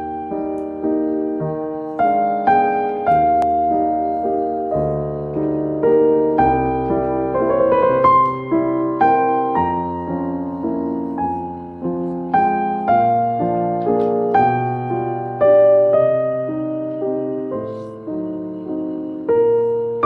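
Soft piano music as a backing track, a slow melody over sustained chords.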